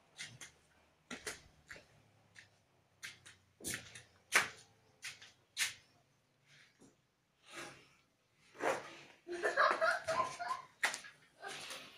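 A cow feeding with its head in a plastic barrel: irregular sharp knocks and clicks, with a busier, noisier stretch of rustling and knocking about three-quarters of the way through.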